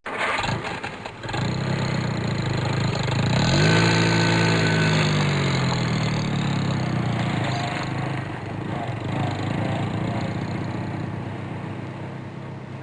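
Supercar engine cranked by its starter for about a second, catching and flaring up in revs, loudest a few seconds in, then dropping back to a steady idle.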